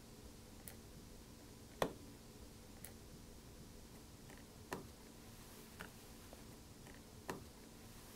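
Phillips 00 precision screwdriver clicking on the small screws of an original MacBook Air's aluminium bottom case as they are backed out: about six sharp ticks spaced a second or two apart, the loudest about two seconds in.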